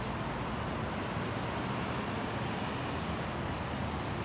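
Steady outdoor background noise, an even rush with no distinct events, at an unchanging level.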